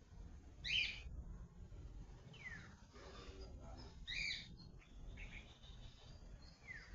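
Birds calling over a faint low hum: two short, sharp chirps, about a second in and again near four seconds, with a couple of quick whistled notes sliding downward between them.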